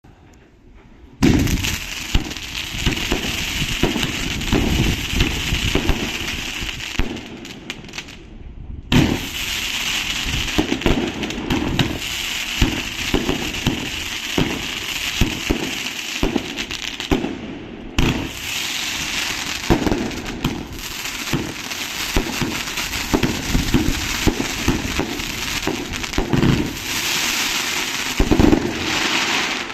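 Weco Dare Devil fireworks cake (31 shots, 485 g of powder) firing: a rapid string of launch thumps and bursts over hissing and crackling, starting suddenly about a second in. Two short breaks come near 8 s and 18 s.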